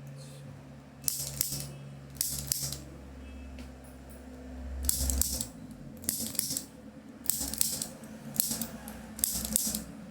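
Adhesive strapping tape being pulled off the roll in seven short ripping strokes, with a pause in the middle, over a low steady hum.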